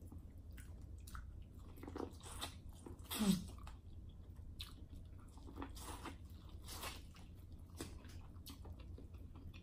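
Close-miked chewing and wet mouth smacks from eating corn on the cob, in scattered short clicks. About three seconds in, a short low hum of the voice that falls in pitch.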